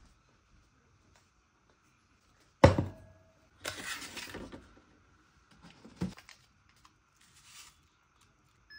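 A ceramic cup set down with a sharp clink on a water dispenser's metal drip grille, then a scraping noise as it is moved into place. Softer knocks and rustles follow as an instant-coffee stick packet is handled.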